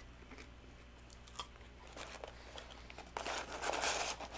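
Faint chewing and small mouth clicks, then about three seconds in a second or so of paper crinkling as a fast-food wrapper or bag is handled.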